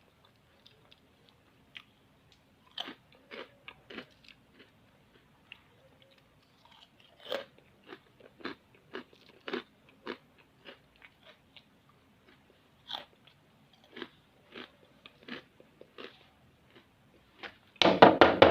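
Crunchy snack being bitten and chewed, in irregular crisp crunches, with a louder cluster of crunches near the end.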